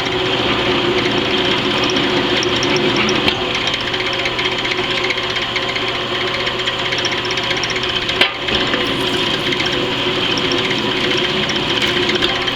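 Drill press running steadily while drilling a steel plate, the motor and spindle giving a constant mechanical whir with a brief dip about eight seconds in.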